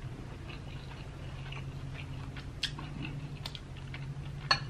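Close-miked eating: soft chewing and small wet mouth clicks, with a sharper click about four and a half seconds in, over a steady low hum.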